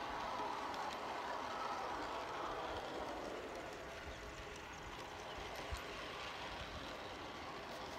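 G scale model train rolling along its track, a steady running noise of wheels on rails with scattered light clicks and one sharper knock just before six seconds, heard from a camera riding on the train.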